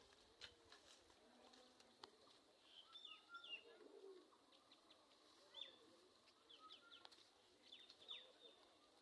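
Faint, scattered bird calls: many short chirps with quick pitch bends, with a few soft clicks among them.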